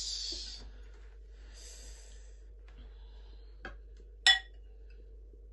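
Two soft breathy sniffs, then a couple of light clicks and one sharp ringing clink about four seconds in: a metal ladle knocking against a glass soup bowl while soup is served.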